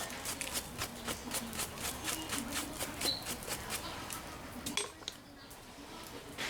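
Rapid, even hammer blows on steel, about four a second, stopping about five seconds in, with one more strike near the end.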